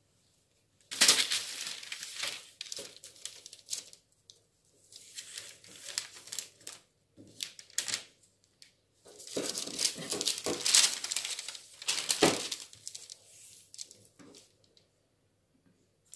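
A large sheet of pattern paper rustling and crinkling under hands as a tape measure is laid across it, in three uneven stretches of a few seconds each with near-quiet gaps between.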